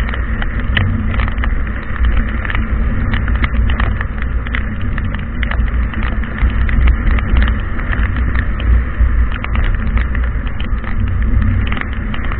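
Heavy rain with a steady low rumble of wind and many scattered drops ticking close by.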